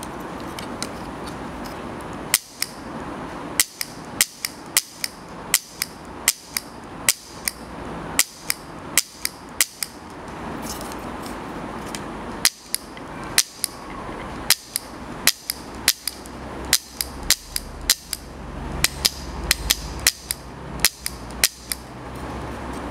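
Plastic shutter of a Recesky twin-lens reflex kit camera being fired over and over by hand: a long run of sharp snapping clicks, about two a second, some in quick pairs, with a pause of a couple of seconds midway.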